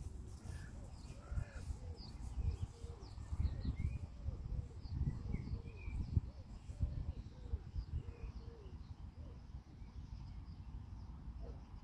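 Birds calling: many short rising-and-falling calls, with smaller chirps higher up, thinning out near the end, over a low uneven rumble.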